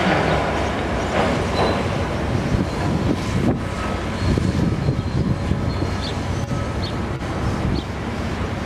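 Demolition excavators working: diesel engines running under a steady rumble while broken concrete and metal crunch and clatter, with a few sharper crashes in the first few seconds.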